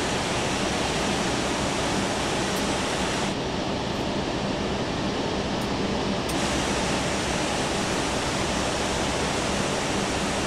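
Airbus A380 jet engines idling as the aircraft pulls onto its gate: a steady, loud rushing hiss with a low hum under it. For about three seconds in the middle it turns duller and loses its hiss, heard from inside the cockpit, then the bright rushing returns.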